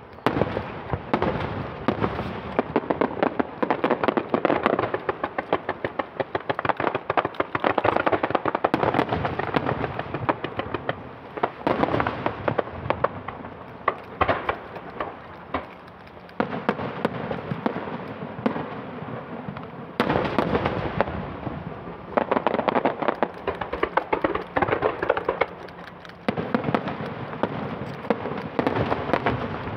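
Aerial fireworks display: shells bursting, with dense rapid crackling that comes in waves, surging again about halfway, two-thirds in and near the end.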